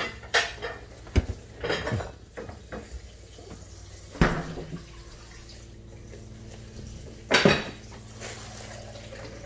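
Scattered knocks and clatter of kitchen items being handled, the loudest about four seconds in and again near the end, with a faint steady hum setting in partway through.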